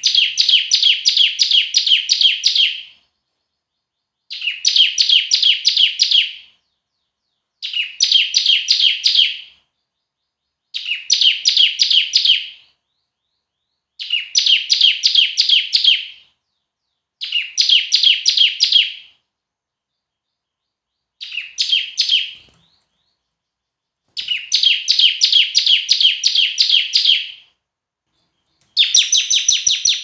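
A ciblek (bar-winged prinia) singing loudly in bursts of two to three seconds of quickly repeated high chirps, nine bursts with pauses of about a second between them; one burst near the two-thirds mark is shorter.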